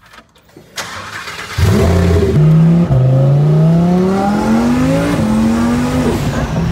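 Twin-turbo Lamborghini Huracán V10 accelerating hard, heard from inside the cabin: the engine note climbs steadily through the gears and drops back at two upshifts.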